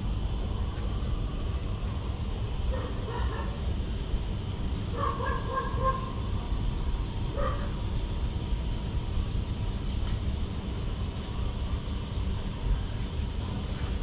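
Steady low rumbling noise, with a few short distant calls over it: one about three seconds in, a quick run of three around five seconds, and one more near seven and a half seconds.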